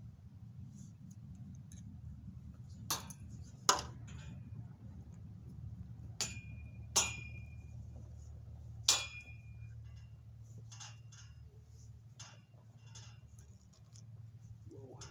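Ratchet tie-down strap being cranked to pull a greenhouse frame piece into place: five sharp metallic clicks spread over several seconds, three of them with a short ring, over a steady low hum.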